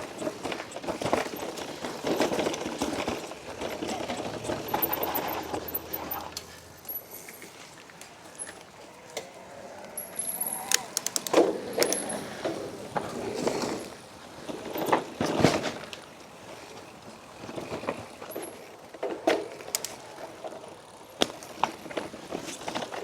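Mountain bike being ridden over a rough trail: continuous tyre and riding noise with scattered knocks and rattles from the bike.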